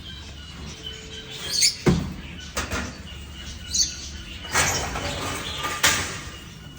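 A few short bird chirps among irregular knocks and rustling bursts, over a steady low hum.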